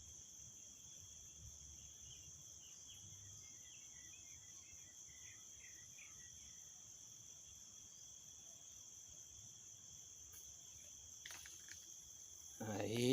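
Chorus of insects, likely crickets, trilling steadily at a high pitch. The chorus holds at two pitches, a strong high one and a weaker lower one.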